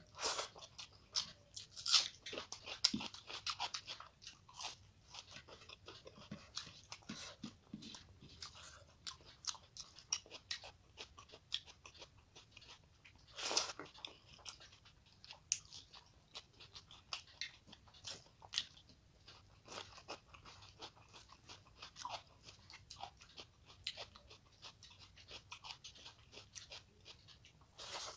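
Close-up eating sounds: a person chewing and crunching mouthfuls of rice and curry, with wet smacks and clicks at irregular intervals. One sharper crunch stands out about halfway through.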